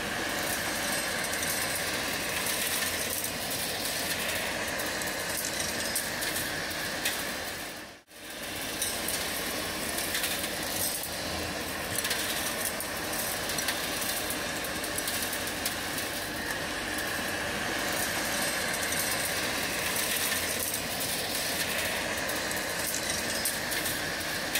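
Kärcher industrial vacuum running steadily with a whining motor while its wide floor nozzle sucks up stones and construction debris, the grit rattling and clicking as it is drawn through the metal wand and hose. The sound cuts out briefly about eight seconds in.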